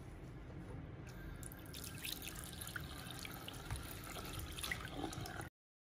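Water trickling and dripping in a hair-wash basin, with scattered small drips and splashes from about a second and a half in. The sound stops suddenly about five and a half seconds in.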